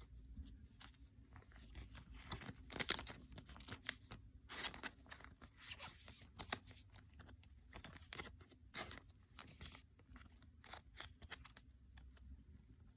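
Pokémon trading cards and their foil pack wrapper being handled close up: cards sliding and flicking against each other and paper-and-foil rustling, in scattered soft strokes with a few longer swishes.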